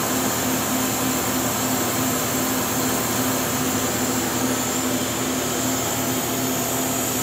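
Steady whir and hum of a powered-up Haas Super MiniMill CNC vertical machining center at its open electrical cabinet: an even noise with a constant low hum tone and a high hiss.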